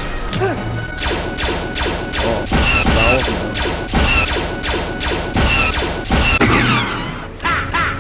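An action film's soundtrack chopped into a rapid stutter edit, with crashes and thuds over orchestral music. A short, high cry is repeated several times as one looped sample.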